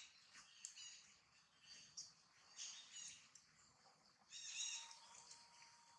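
Faint high-pitched chirping calls in three short bouts, one near the start, one about halfway through and the strongest a little after that.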